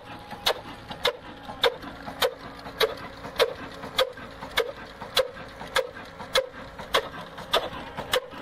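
Old black oil engine, a slow-running diesel with a heavy flywheel, running steadily with sharp, even beats just under two a second.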